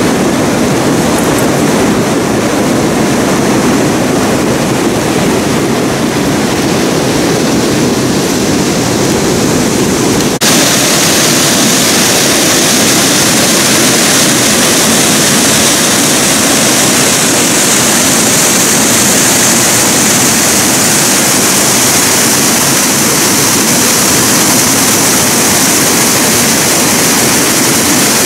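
Fast whitewater in a mountain creek, rushing loudly and steadily as it pours out of a concrete tunnel outlet and over rocks. About ten seconds in the rush changes suddenly to a brighter, hissier sound.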